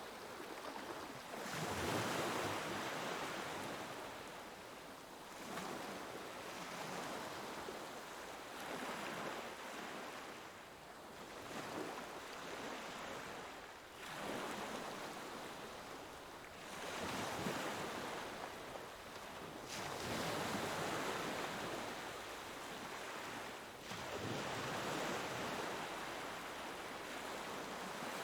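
Sea waves breaking and washing in, one surge of surf every three to four seconds, each swelling and then falling back.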